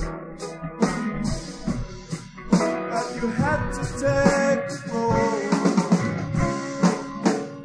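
A 1970s rock band playing, with guitars, bass and a drum kit keeping a steady beat.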